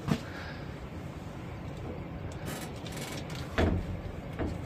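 Knocks and thumps of a metal-sheeted wooden door as a sticker is pressed onto it: a sharp knock just at the start and a heavier thump about three and a half seconds in, over a steady low rumble.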